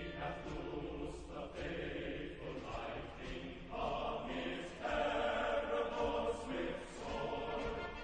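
Choral music: a choir singing held, changing chords.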